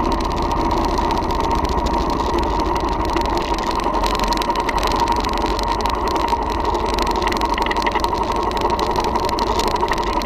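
Royal Enfield Thunderbird's single-cylinder four-stroke engine running steadily as the motorcycle rides along a dirt track.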